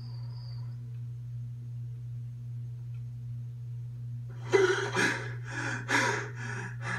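A cartoon character gasping for breath in a run of about six short, heavy gasps, starting about four and a half seconds in, over a steady low hum. A faint music tone fades out within the first second.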